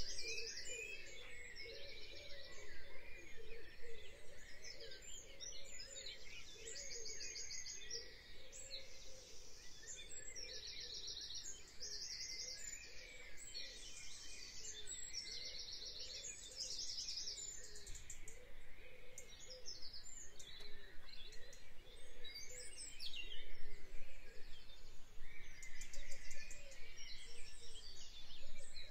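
Birds chirping, with short, rapid high trills repeating every second or two over a continuous background of other bird calls.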